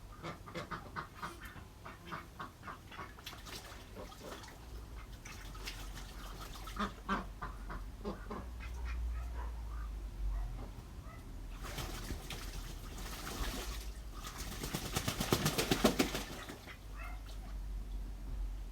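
Short quacking, duck-like calls in quick succession. About twelve seconds in they give way to scratchy rubbing, then a loud burst of rapid back-and-forth strokes, consistent with crayon being scribbled on paper.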